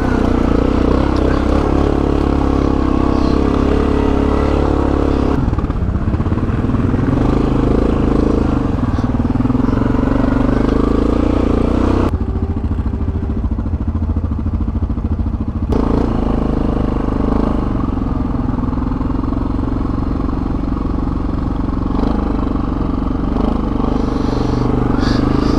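Yamaha Grizzly 700 ATV's single-cylinder four-stroke engine running under way, its note rising and falling with the throttle. About halfway through it drops back to a lower note for a few seconds, then picks up again.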